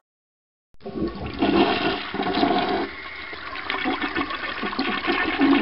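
Water rushing and gurgling, starting abruptly under a second in after silence.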